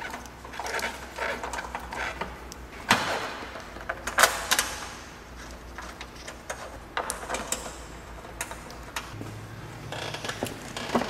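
Plastic upper fan shroud being worked into place over the radiator by hand: scraping, rattling and clicking of plastic parts, with two sharp knocks about three and four seconds in.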